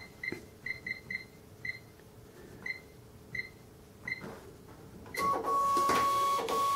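Sam4S NR-510F cash register keys beeping, about nine short high beeps over the first four seconds as menu keys are pressed. Then its built-in receipt printer runs steadily for about a second and a half, printing a stock report.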